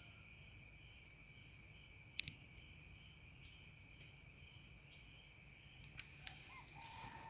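Faint, steady chirring of crickets or other night insects, with one sharp click about two seconds in.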